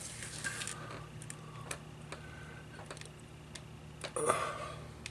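Light clicks and handling noise from the small plastic slide switches of a Sony Walkman being worked, with a louder brief scrape about four seconds in, over a low steady hum.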